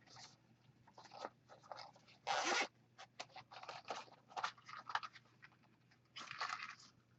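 Zipper of a small soft carrying case being pulled open in short, irregular runs, with handling scrapes between; the longest pulls come about two and a half seconds in and again near the end.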